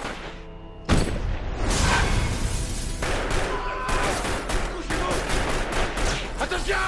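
Handgun shootout in a film soundtrack: a sudden loud shot about a second in, then rapid volleys of pistol fire.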